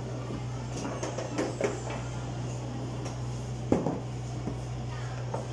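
Skee-Ball Lightning arcade machine: a steady low hum under scattered knocks and clicks of balls in the lane and scoring rings, with one sharp clunk a little past halfway, as the game ends.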